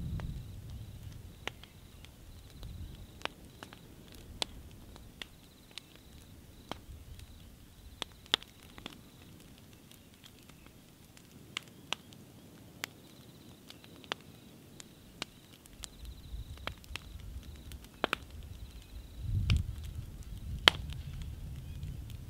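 Wood bonfire crackling, with irregular sharp pops and snaps. A low rumble fades after the start and swells again about 19 seconds in.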